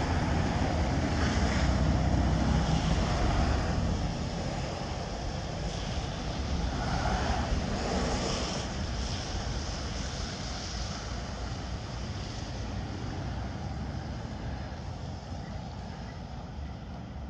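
Heavy trucks passing close by: engine rumble and tyre noise, loudest over the first few seconds, swelling again as a tractor-trailer goes by about seven seconds in, then slowly fading as the traffic moves off.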